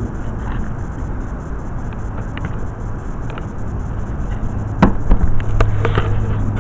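Steady low rumble of outdoor traffic noise. Between about five and six seconds in come a few sharp knocks and clatters as a mortar hoe is set down on a plastic mixing tub and buckets are handled.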